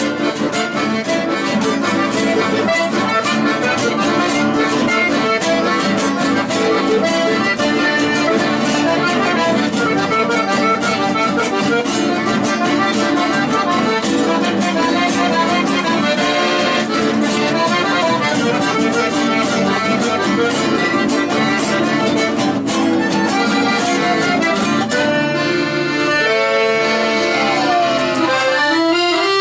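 Accordion-led chamamé music playing steadily, with a fast plucked-string accompaniment.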